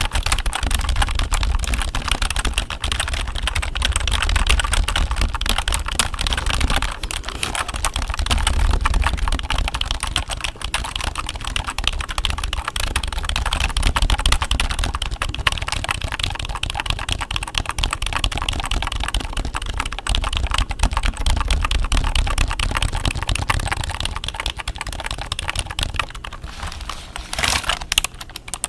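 Computer keyboard keys being typed on rapidly for ASMR, a dense, continuous clatter of key clicks. There is a louder flurry near the end, after which the typing thins out.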